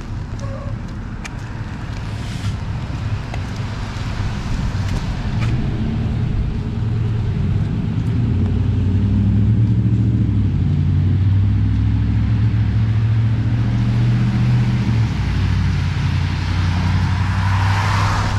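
Road traffic: a vehicle engine's low hum grows louder over several seconds and holds. A few seconds before the end, the hiss of tyres on wet road rises as another car approaches.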